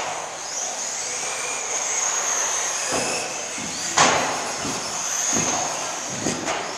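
2WD electric RC buggies with 17.5-turn brushless motors racing, a high whine that rises and falls with the throttle over the noise of the cars on the track, with a sharp clack about four seconds in.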